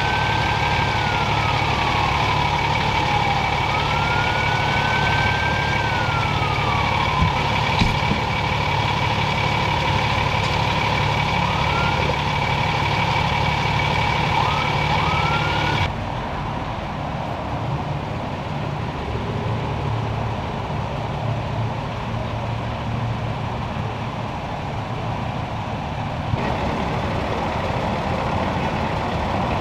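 Emergency vehicles idling amid freeway traffic noise, with a siren wailing slowly down and up in the first several seconds and a few short siren chirps later. About halfway in the sound cuts to a plainer steady engine and traffic hum.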